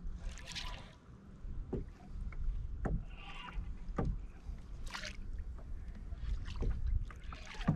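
Water lapping and slapping against a plastic fishing kayak's hull over a low wind rumble, with scattered short clicks and a few brief splashy bursts while the angler fights a fish on a bent rod.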